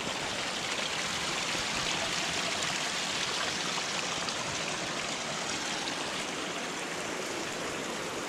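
Small stream spilling down a little cascade: a steady rush of running water.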